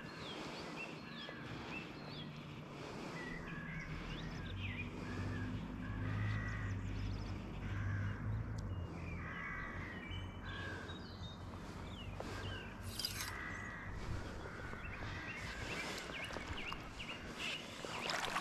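Birds calling at the riverside, with many short calls repeated throughout. A low steady hum comes up about four seconds in and fades out near the end.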